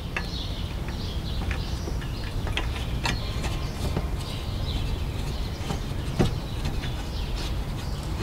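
Scattered light clicks and taps of a motorcycle paddock stand's hook bracket and plastic star knob being handled and screwed in by hand, over a steady low background rumble.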